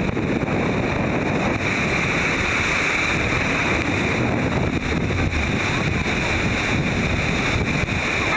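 Steady roar of churning whitewater and falling spray around an open boat beneath a waterfall, with wind buffeting the microphone.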